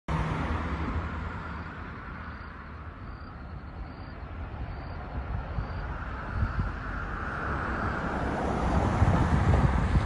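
Road traffic: a motor vehicle's engine rumble and tyre hiss, growing louder as a vehicle passes near the end.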